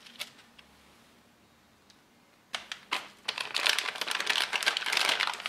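Crinkling of MRE food pouches handled in the hands. A few light crackles at first, a near-quiet pause, then steady dense crinkling from about halfway in as the nut raisin mix pouch is picked up and handled.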